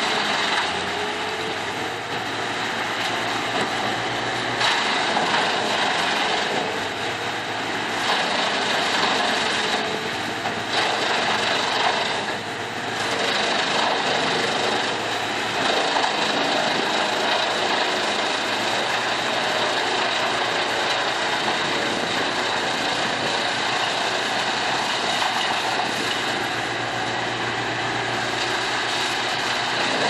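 Trailer-mounted wood chipper running at working speed as an excavator's grapple feeds it branches: a loud, steady engine and machinery noise that dips briefly a couple of times.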